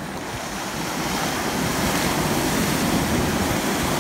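Small surf washing in over shallow sea water: a steady rush of breaking foam that swells about a second in and holds.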